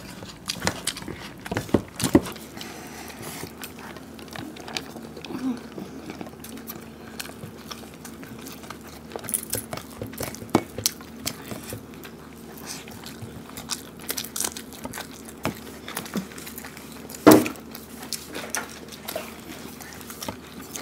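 Eating by hand: fingers mixing and scooping fried rice on plates, with chewing and many small scattered clicks. One brief louder thump about 17 seconds in.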